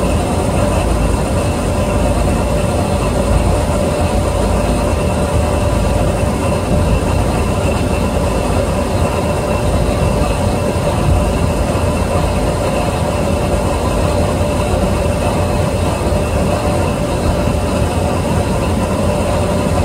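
Boat engine running with a steady drone: a deep rumble and a constant hum that does not change.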